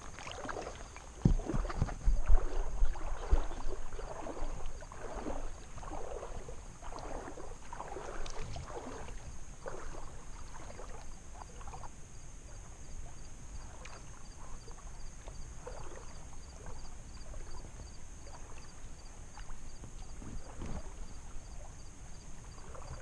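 Wading steps through shallow bay water: legs sloshing and splashing at roughly one stride a second, fainter in the second half. A few loud low thumps come a second or two in.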